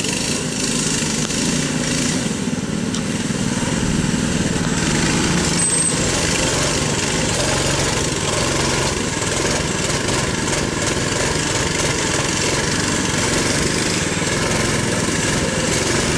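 Small engines of Baja mini bikes running steadily as they ride laps through mud.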